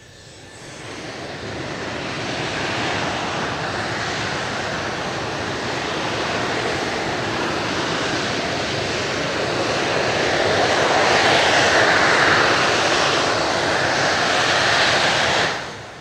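Jet noise from an F-4EJ Kai Phantom II's twin J79 turbojets at high power. It builds over several seconds to its loudest about twelve seconds in, then cuts off sharply near the end.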